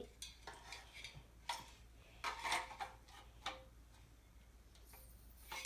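Fire alarm devices being handled and set down: several separate knocks and clatters, the loudest about two and a half seconds in.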